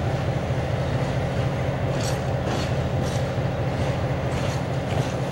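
Train on the neighbouring track, a steady low rumble of its running gear and motor, with short high-pitched rail clicks and hisses coming in from about two seconds in.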